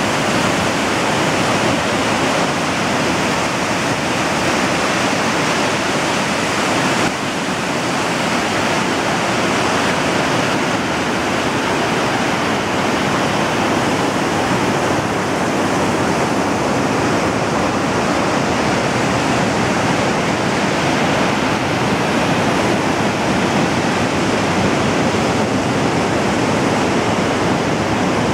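Gullfoss waterfall rushing: a loud, steady wash of falling water, with a slight drop in level about seven seconds in.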